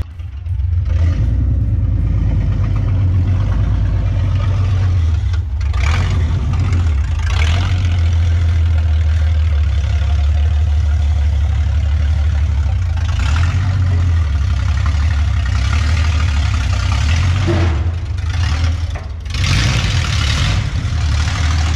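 Jeep CJ-7's engine running at low speed through true dual headers without the new mufflers yet fitted: a loud, steady low exhaust rumble with a few brief rises in throttle as it creeps forward.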